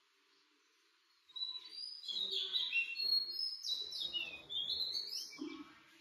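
Small birds chirping and twittering in quick, overlapping calls with rapid rises and falls in pitch. The calls start about a second in and fade just before the end.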